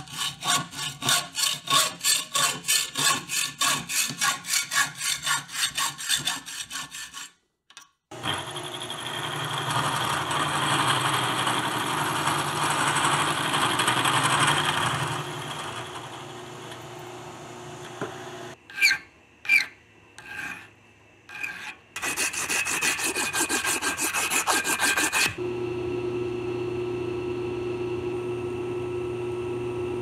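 A hand tool rasps back and forth on metal in even strokes, about three a second, for some seven seconds. After a break comes a steady rushing noise of shop work, a few short knocks, and then an electric machine motor running with a steady hum near the end.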